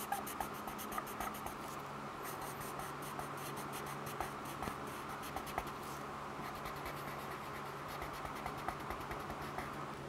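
Pencil scratching on paper in quick, repeated short strokes as a drawing is made, over a faint steady low hum.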